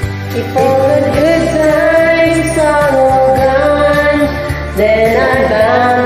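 Female voice singing long held notes without clear words, over steady instrumental accompaniment, the pitch moving up about a second in and again near the end.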